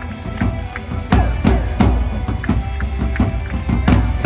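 Loud cheer music with a steady drum beat, about three beats a second over a heavy bass.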